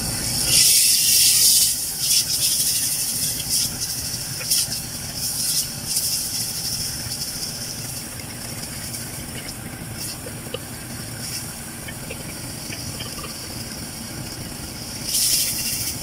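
Spiced onion-and-tomato masala sizzling in hot oil in a clay pot while a wooden spoon stirs and scrapes through it, with scattered clicks of the spoon. The sizzle is loudest for a second or two near the start, quieter through the middle, and swells again near the end.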